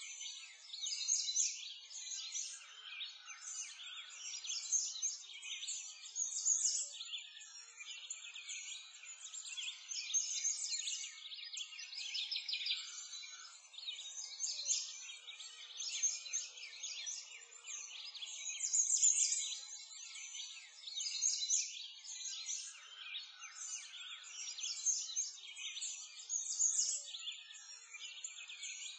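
A dense, continuous chorus of songbirds chirping and trilling, many calls overlapping, all high-pitched with nothing deeper beneath them.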